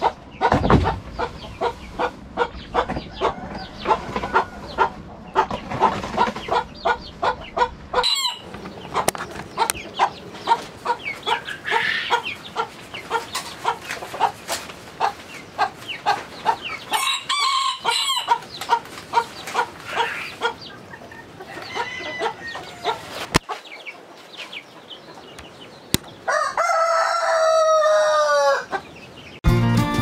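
Chickens clucking in short repeated calls, with a rooster crowing once, a long call falling in pitch near the end. Guitar music comes in just before the end.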